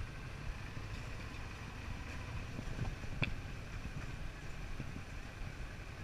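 Suzuki V-Strom 650 motorcycle's V-twin engine running as it rides slowly on a wet street, a steady low rumble mixed with road and wind noise. One sharp click about three seconds in.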